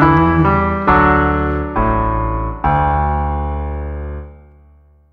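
Electric piano playing the closing chords of a country song cover: three chords struck about a second apart, the last one left ringing and fading away until the sound stops near the end.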